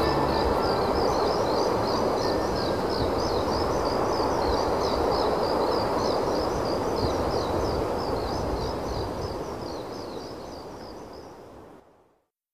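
Night-time outdoor ambience: insects chirping in a quick, steady, high-pitched pattern over a low, even rushing hiss, fading out near the end.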